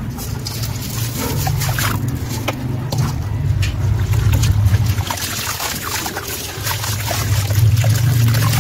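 A soaked sand-cement chunk being handled in a tub of water: water sloshing and dripping, with gritty crackles as the wet chunk is crumbled and bits fall back into the water near the end. A steady low hum runs underneath.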